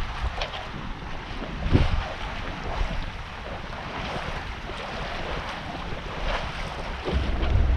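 Water rushing and splashing along the hull of a sailboat under way under sail, with wind buffeting the microphone in gusts about two seconds in and again near the end.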